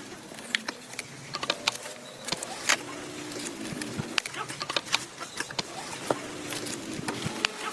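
Irregular sharp clicks and taps of tools and metal parts being handled, over a faint, on-and-off hum.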